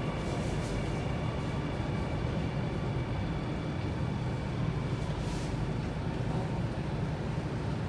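Alstom Metropolis C830C metro train running into a station platform, heard inside the car by the doors: a steady rumble with faint steady whines above it. A brief hiss comes about five seconds in.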